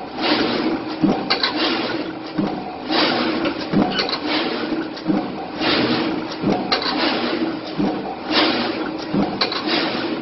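A corrugated-box machine running with a steady hum, and a burst of rushing, clattering noise roughly every second and a half as each cardboard sheet is hand-fed through it.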